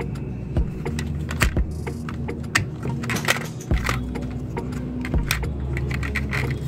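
Diecast toy pickup truck being handled and pushed over concrete, making many small metallic clicks and clinks, over background music with held low notes.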